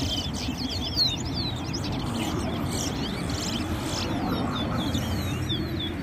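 Towa-towa songbirds singing in a song race: rapid phrases of short, high, sweeping chirps, one song after another, over a low steady background rumble.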